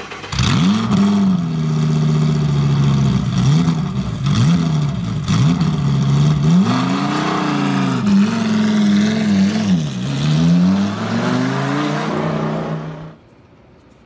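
A car engine revving hard, the revs climbing and dropping back several times, then cutting off suddenly near the end.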